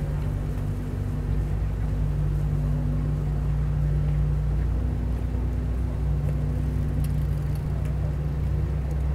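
Steady low engine drone at constant pitch, a motor running at an even speed.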